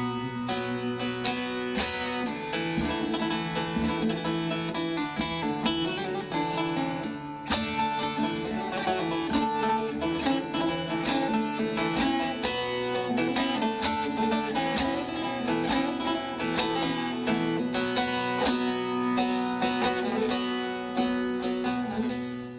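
Instrumental break in a Turkish folk song: a plucked string instrument playing quick runs of notes over held lower tones.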